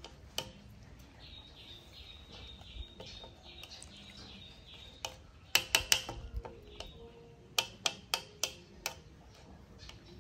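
Metal utensil clicking and scraping against a ceramic plate as food on it is cut, in two quick runs of sharp clicks from about halfway through. Before that, a bird chirps rapidly over and over in the background.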